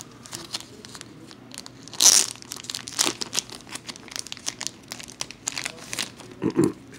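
Clear plastic wrapping on a stack of baseball cards crinkling and crackling as it is handled, in a run of short crackles with the loudest burst about two seconds in. A couple of duller knocks come near the end.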